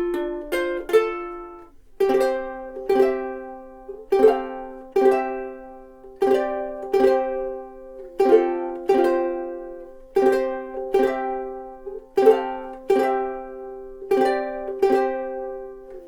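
Millar TM-210L mahogany long neck soprano ukulele played solo. It starts with a few quicker picked notes, then from about two seconds in chords are strummed about once a second, each left to ring and fade.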